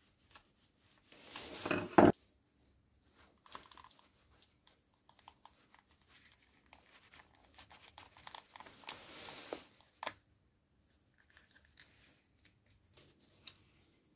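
Gloved hands handling a small electrical fitting with brass terminals from an old grinder: scattered clicks and scraping as a screwdriver works in the terminals, with a longer stretch of scraping past the middle and a sharp click after it. The loudest noise is a short crackling scrape about two seconds in.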